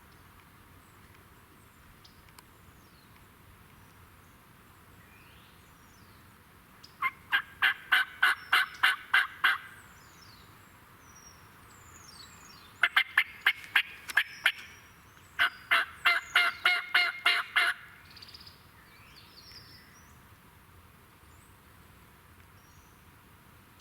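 Turkey yelping: three series of sharp, evenly spaced notes, about four to five a second and each series two to three seconds long. The second and third series come close together. Small birds chirp faintly in the background.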